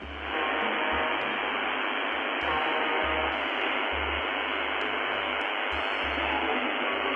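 Shortwave radio static: a steady hiss of a receiver tuned to a station, with faint steady tones coming through it.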